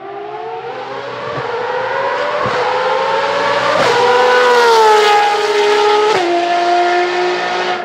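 Ferrari FXX K's 6.3-litre V12 accelerating hard, its pitch climbing, then dropping sharply with upshifts about four and six seconds in. It is loudest just after the middle.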